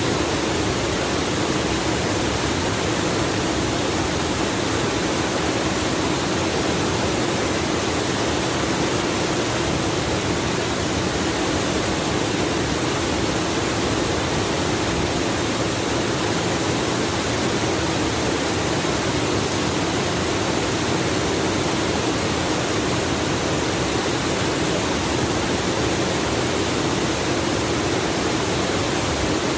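Waterfall in a stream gorge, a steady, unbroken rush of falling water.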